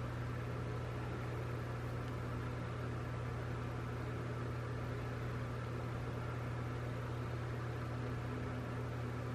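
Steady low hum with a faint hiss behind it, unchanging in level.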